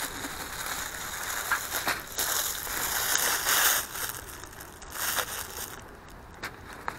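Clear plastic wrapping crinkling and crumpling as it is pulled off a small disposable barbecue, loudest from about two to four seconds in. It then dies down to a few light clicks near the end.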